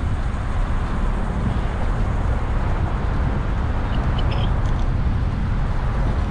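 Steady road traffic noise from passing cars: an even, unbroken wash of sound heaviest in the low rumble, with a few faint short high chirps about four seconds in.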